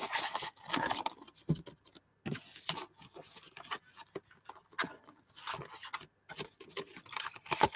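Rustling and scraping of a craft die set's clear plastic packaging being handled and slid across a craft mat, in a string of short, irregular scrapes and crinkles.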